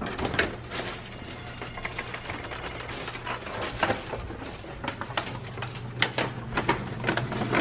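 Irregular clicks and knocks of a hotel room door with a key-card lock being opened and walked through, over a steady low hum.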